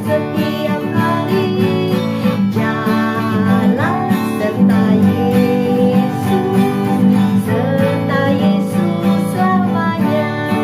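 A praise song with strummed acoustic guitar, playing steadily throughout.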